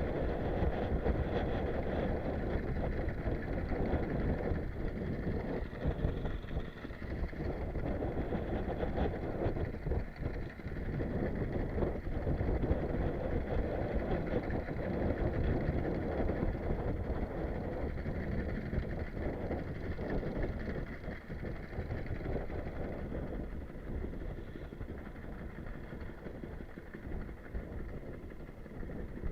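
Strong sea wind buffeting the microphone, with a fishing boat's engine running steadily underneath.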